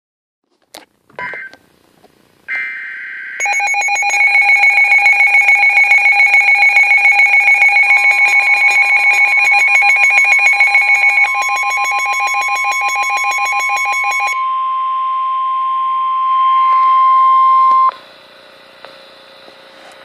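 NOAA Weather Radio receivers going off for an Emergency Alert System severe thunderstorm warning: a few short electronic squawks, then a loud pulsing electronic alarm beeping for about ten seconds. Overlapping it, the steady 1050 Hz weather-radio warning tone comes in about eight seconds in, grows louder, and cuts off sharply about two seconds before the end.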